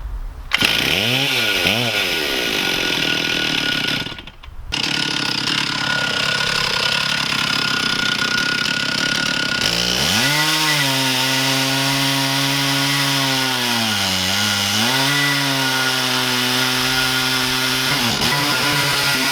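Two-stroke Stihl MS 460 chainsaw mounted in a Granberg Alaskan mill, running at high revs while ripping lengthwise through a log to cut a slab. It revs up near the start, then holds a steady pitch under load that sags briefly partway through and recovers.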